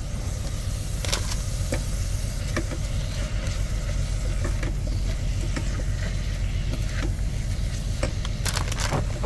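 Onions and sliced baby bella mushrooms sizzling in beef fat in an Instant Pot on sauté, with occasional sharp clicks and taps as the mushrooms go in and are stirred, a cluster of them near the end. A steady low hum runs underneath.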